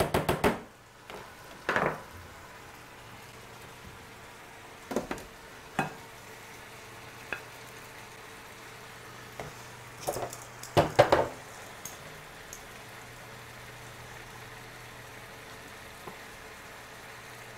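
Steak bites sizzling steadily in a frying pan, with scattered clinks and scrapes of a serving spoon and tongs against saucepans and a plate; a cluster of louder clatters comes a little past halfway.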